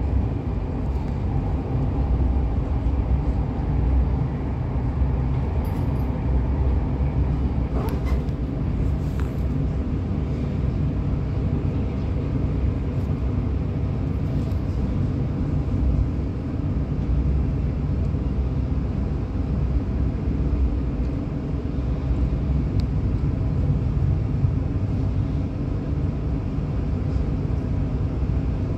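Steady low rumble of a passenger train running along the line, heard from inside the carriage.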